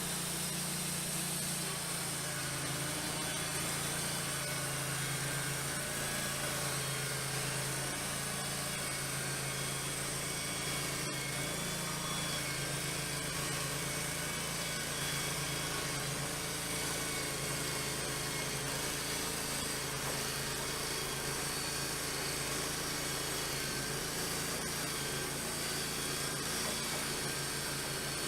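Wood-Mizer portable band sawmill running steadily, its engine holding a constant pitch as the band blade saws a 1-inch board off a pine log.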